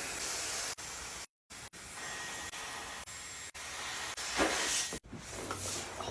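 A Dyson blowing a steady rush of air to inflate a pool float, used in place of an air compressor. The sound breaks off abruptly several times, with a louder surge of air about four and a half seconds in.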